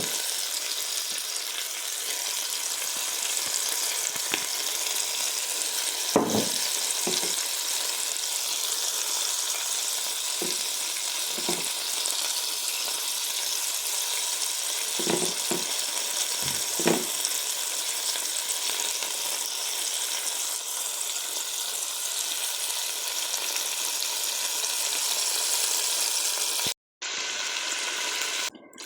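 Food frying in hot oil in a cooking pot, sizzling steadily, with a few short knocks of a utensil stirring it.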